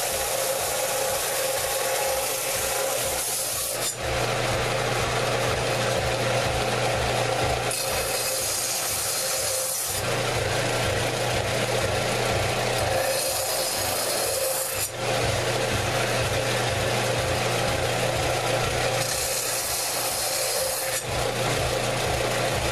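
A power tool's motor runs steadily while an abrasive is worked lightly over the steel of a saw-blade knife to clean it up. Spells of harsher, hissing scraping come every five or six seconds as the abrasive bites into the metal.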